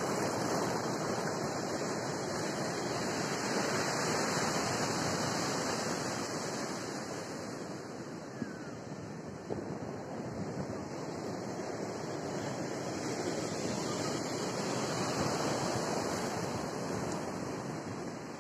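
Surf on a sand beach: a steady rush of small breaking waves washing up the shore, swelling and easing in loudness.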